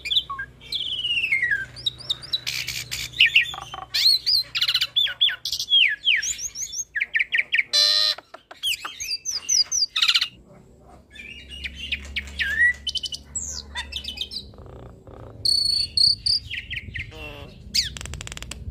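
Hybrid starling (Asian pied starling × Nias hill myna) singing a long, varied song of whistles, rising and falling slurred notes, fast trills and harsh chattering, packed with mimicked phrases.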